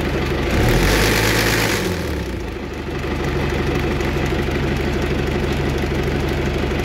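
Tractor engine idling steadily, driving a field sprayer that has just been switched off after a pump repair. About half a second in, a brief hiss runs for over a second.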